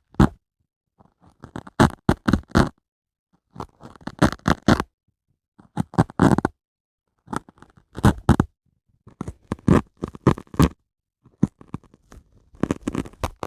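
A dry sponge worked close to the microphone, crackling and crunching in short bursts of several sharp crackles each. The bursts come about every one and a half to two seconds, with silence between them.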